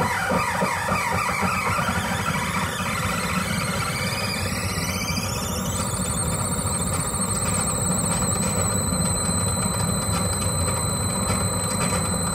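Experimental electronic music: a dense low noise bed under high tones that glide upward over a few seconds and then, about six seconds in, settle into a steady high whine.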